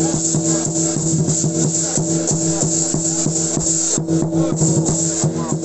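Music with a steady held tone over a dense, rapid crackle of hits, loud and even throughout, with a brief dip about four seconds in.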